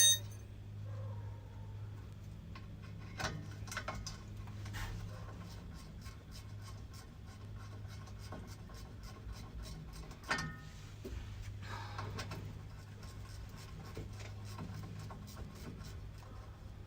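Hand ratchet with a half-inch drive and a 7/16 socket clicking and scraping as the driveshaft bolts are loosened by hand, with a sharper metal clink about ten seconds in, over a steady low hum.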